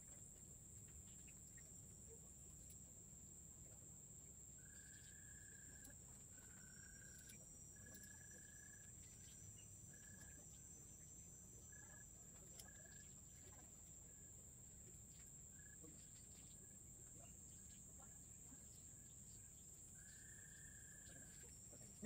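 Faint forest ambience: a steady high insect drone with a bird calling over it in a series of flat, whistled notes. The first few notes are longer and the later ones shorter, with one long note near the end.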